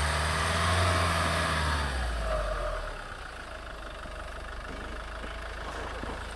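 UAZ Patriot SUV's engine revving under load as it pushes through deep snow. About two to three seconds in the revs fall away and it settles to a quieter idle.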